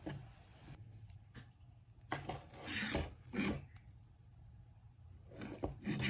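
Hands and fishing line rubbing and scraping across a wooden tabletop, in two spells of brushing noise: one about two seconds in and another near the end.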